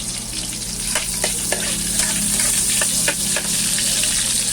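Food sizzling in hot oil in a pan, a steady hiss, while a spatula stirs and scrapes against the pan with a few sharp clicks.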